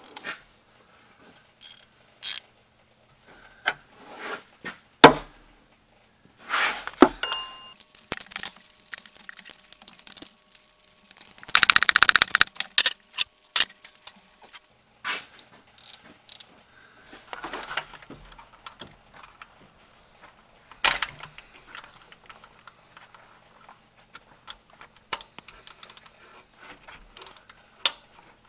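Hand ratchet and socket clicking in short runs, with metal-on-metal clinks, as the water pump bolts on a GM 3.5L V6 are backed out. The longest, fastest run of ratchet clicks comes about halfway through.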